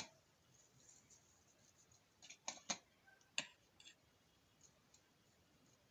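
Near silence broken by a handful of faint, sharp clicks and taps between about two and four seconds in: small kitchen items being handled as salt is added to a slice of bread.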